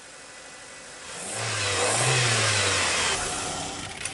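Mitsubishi Mirage 4G15 1.5-litre four-cylinder engine revved once, about a second in, rising and falling back over about two seconds. A squeak comes from the alternator belt, a sign the belt needs adjusting.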